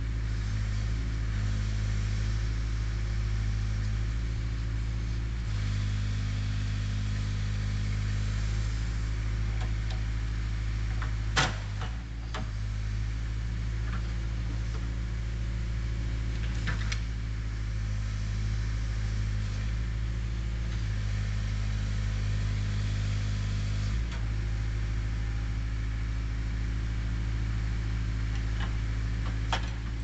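Case 580E backhoe's diesel engine running steadily while the hoe digs, its note shifting a few times as the work load changes. A few sharp knocks sound over it, the loudest about eleven seconds in.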